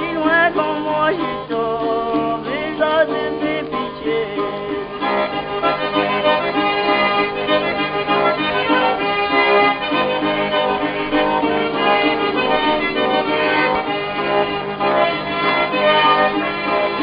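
Accordion-led traditional music with other instruments; from about five seconds in it grows fuller.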